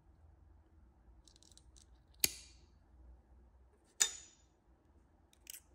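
Pliers cutting wire: two sharp metallic snips about two seconds apart, each with a short ring, and a few lighter clicks around them.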